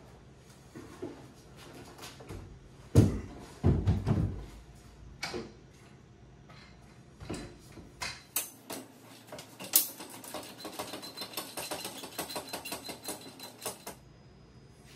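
Cabinet installation work: a heavy wooden knock about three seconds in and a few more thumps, scattered clicks, then several seconds of rapid rattling clicks of hardware being handled.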